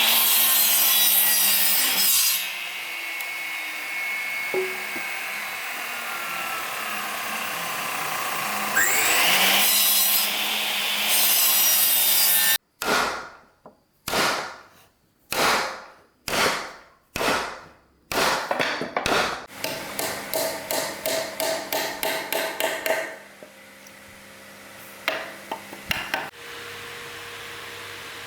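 Woodworking on timber: a loud steady hissing machine noise for the first dozen seconds, then wood being sawn by hand in separate strokes, about one a second at first and then faster, before it quiets with a few clicks near the end.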